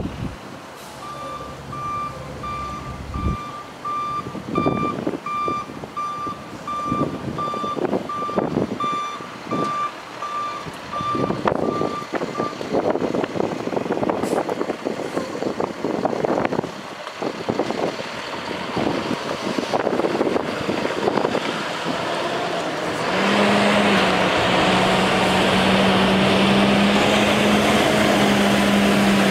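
A 2009 International 4300 water truck's backup alarm beeps steadily, about one and a half times a second, for around twelve seconds while its MaxxForce DT diesel runs. After the beeping stops the diesel keeps working unevenly as the truck manoeuvres. About three-quarters of the way through, the truck's PTO-driven spray system starts, and water hisses loudly out of the spray heads over a steady engine hum.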